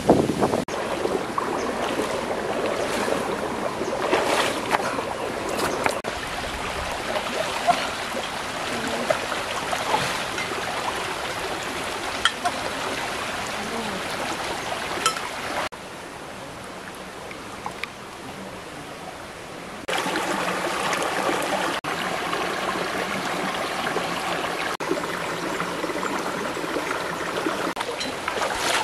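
A shallow rocky stream running and babbling steadily, with small splashes now and then; the water sound drops quieter for a few seconds past the middle.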